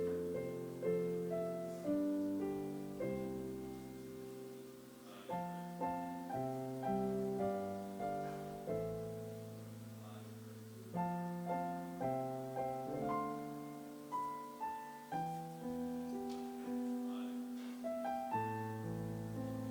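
Solo piano playing slow, quiet chords, each struck and then left to fade.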